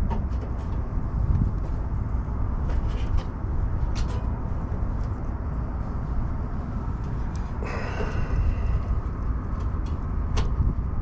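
Light clicks and ticks of hand work on the unit's old wiring over a steady low rumble, with a short squeaky tone about eight seconds in.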